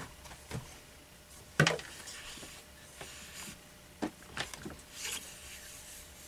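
Bore snake cord being fed into the chamber of an AR-15 upper receiver: soft rubbing of the cord, with a sharp knock about one and a half seconds in and a few lighter clicks against the rifle.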